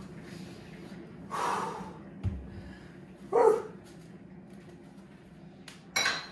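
A man breathing hard after kettlebell swings, with a loud grunting exhale about three and a half seconds in. A dull thud just before it as the kettlebell is set down on the wooden floor, and a sharp click near the end.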